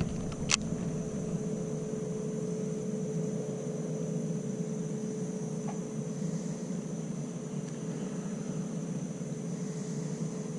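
A steady hum holding one constant mid-pitched tone over a low rumble, with a faint high whine above it, and a single sharp click about half a second in.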